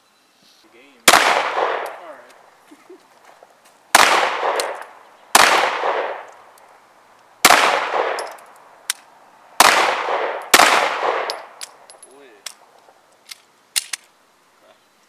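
Semi-automatic pistol shots: six sharp reports one to two seconds apart, each trailing off in an echo, with a few faint clicks in between and near the end.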